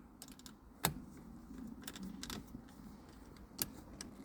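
Screwdriver starting a fine, roughly 4 mm screw into the VW Beetle indicator switch: faint scrapes with a few sharp light metal clicks, the loudest a little under a second in. The screw is being fed in until its thread catches.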